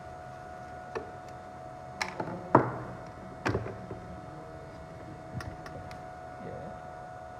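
Scattered clicks and knocks of tools and metal parts being handled while a FANUC power supply unit is taken apart, the loudest knock about two and a half seconds in, with a few lighter clicks later. A steady high hum runs underneath.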